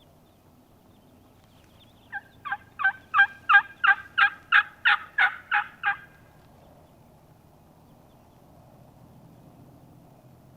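Turkey hen-yelp series: about a dozen evenly spaced yelps, roughly three a second, growing louder and then easing off. The yelps are loud and close, the calling a hunter uses to draw a gobbling tom.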